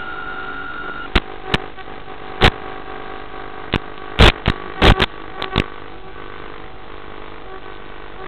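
Small motor of a radio-controlled toy fire boat running steadily, heard from on board as a constant whine of several tones. About a second in a higher tone drops out, and about a dozen sharp knocks follow, most of them bunched between two and six seconds in.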